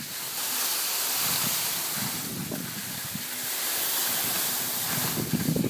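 Skis hissing over packed snow and wind rushing over the microphone as the filming skier glides downhill, a steady noise without a beat.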